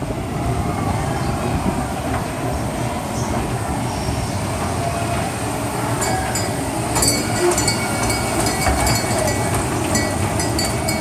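Small amusement-park ride train running on its track with a steady rumble. From about six seconds in, rapid high metallic clinking and thin squealing tones join in.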